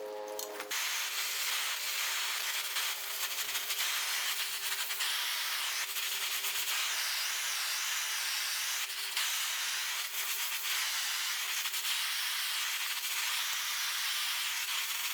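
Steady abrasive rubbing, as of sanding, with a few brief breaks, over a faint steady hum.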